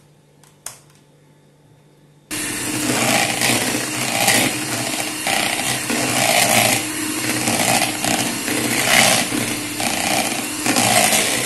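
Electric hand mixer switched on about two seconds in, its motor running steadily with a regular pulsing as the beaters whip egg whites in a plastic bowl for meringue.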